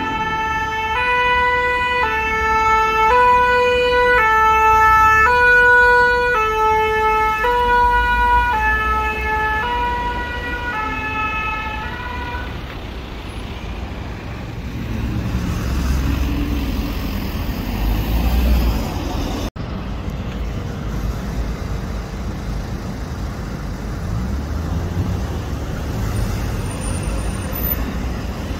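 French two-tone emergency siren ("pin-pon") on a fire-brigade rescue vehicle, alternating a high and a low note about every half second and fading away about twelve seconds in. After that come steady road traffic and engine rumble, with a sudden momentary break in the sound about two-thirds of the way through.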